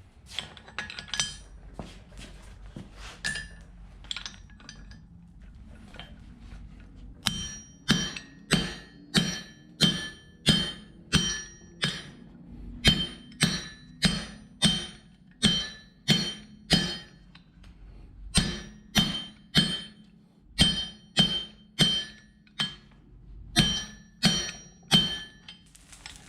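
Hammer blows on an anvil, each strike ringing with a clear metallic tone, while hot steel is forged down into a pin. The first few seconds hold a handful of lighter, scattered taps; the rest is a steady rhythm of about a blow and a half per second, with a few short pauses.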